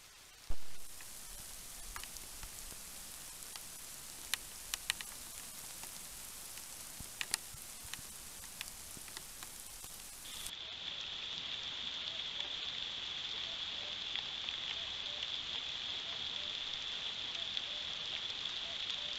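Rain falling on a trail camera: a steady hiss with scattered sharp ticks of drops striking the camera, after a single loud knock about half a second in. About ten seconds in the sound changes to a duller rain hiss under a steady high-pitched tone.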